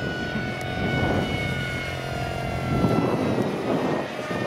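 Radio-controlled model of a Kyushu J7W Shinden flying overhead: a steady high motor-and-propeller whine whose pitch slowly falls, over a continuous rushing noise.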